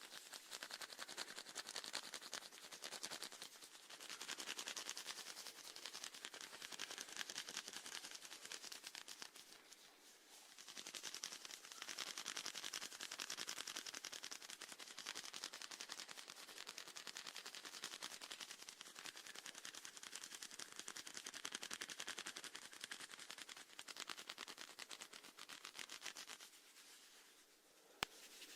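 Snails feeding, close-miked: a fast, continuous crackle of tiny clicks as their radulas rasp at food. There is a short lull about ten seconds in and another near the end.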